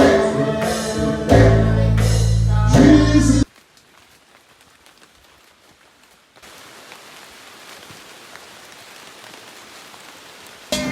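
Loud music with a heavy, sustained bass line cuts off suddenly after about three and a half seconds. A faint, steady hiss follows, growing a little louder about six seconds in. Music starts again near the end.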